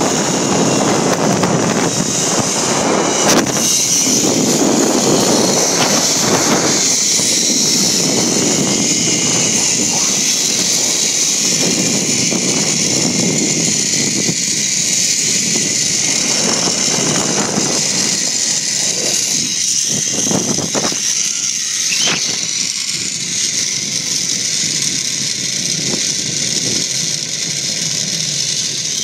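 Wind rushing and buffeting over a phone's microphone during a zip line ride, over the steady hiss of the trolley running along the cable. The buffeting eases off in the second half.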